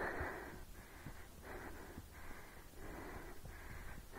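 A person breathing hard and fast, out of breath from running uphill: about three loud breaths in or out every two seconds.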